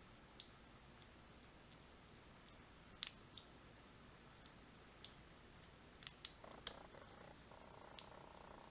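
Faint, scattered metallic clicks of a lock pick and tension wrench working the pins of a five-pin tumbler lock during single-pin picking. The loudest click is about three seconds in, and a quick cluster of clicks comes around six to seven seconds.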